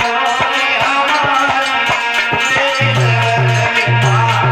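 Instrumental Indian folk dance music: a steady melody over a regular hand-drum beat. Deep, repeated low notes join about three seconds in.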